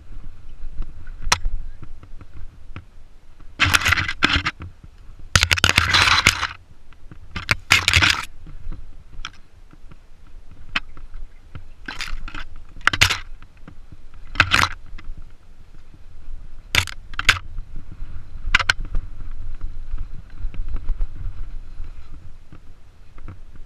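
Mountain bike riding down a narrow dirt singletrack, heard from a camera on the rider or bike: a steady low rumble with about a dozen short bursts of scraping and rattling, the longest and loudest around four to eight seconds in.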